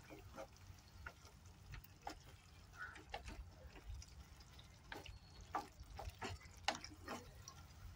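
Cauliflower florets being stirred through a wet masala gravy in a non-stick kadhai with a metal spatula: faint wet, liquid stirring sounds with irregular light clicks and scrapes of the spatula against the pan.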